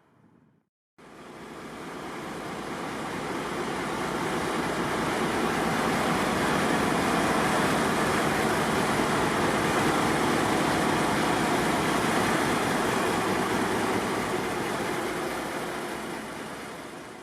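A short diesel-hauled train passing: DE10 diesel-hydraulic locomotives at each end of a Maya 34 track-inspection car. A steady rush of engine and wheel noise builds over several seconds, holds, then fades away.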